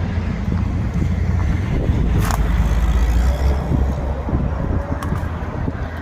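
Low rumble of a road vehicle, with one sharp click a little over two seconds in.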